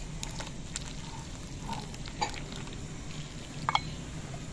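Hot milky tea being poured from a pan through a metal tea strainer into cups: liquid trickling, with a few light clicks.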